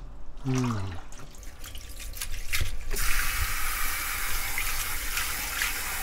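Water dripping and splashing as wet, brine-soaked greens are lifted out of a steel bowl into a wire strainer. About three seconds in, a kitchen tap turns on and runs steadily into the sink to rinse the greens.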